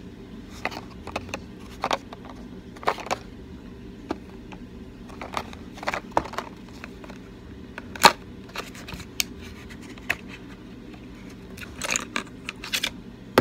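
Hands handling cardboard packaging and a black item in an unboxing: scattered taps, clicks and light rustles, the sharpest click about eight seconds in and a quick run of clicks near the end, over a steady low hum.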